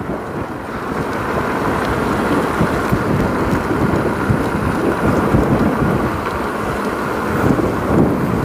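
Steady rushing wind noise on the microphone with low road rumble from an electric unicycle's tyre rolling on pavement while riding.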